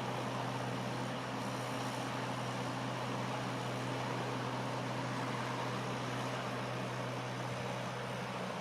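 Heavy diesel construction machinery running steadily: a constant low engine hum under a wide mechanical noise, with no change in pitch or level.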